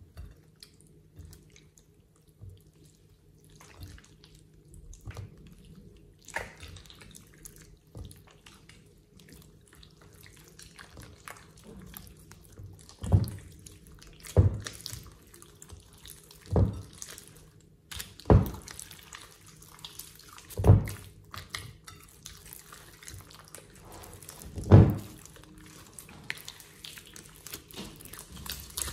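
Hands kneading and squeezing a large mass of wet, glossy slime: soft sticky squelching, then, in the second half, several loud wet pops about every two seconds as trapped air bursts out of the slime.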